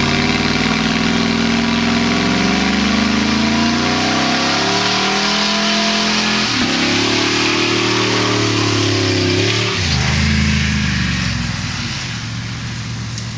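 1999 Ford F-150 pickup's engine revving hard during a burnout, with a steady hiss of spinning tyres. The engine climbs in pitch for several seconds, dips sharply twice, then drops back and fades near the end.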